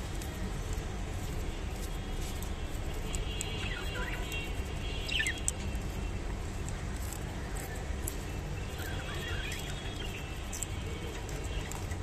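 Budgerigars chirping and warbling a few times, in short bursts of bending pitch around four to five seconds in and again near nine seconds, over a steady low background rumble.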